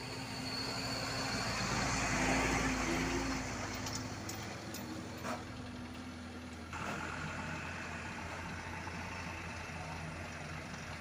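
Diesel engine of an Isuzu Elf light dump truck running as the truck reverses and manoeuvres, loudest about two seconds in. Two sharp clicks come midway.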